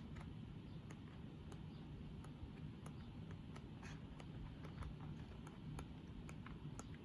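Faint handling of a paper pad: light, irregular ticks and rustles of sheets being moved, over a low steady room hum.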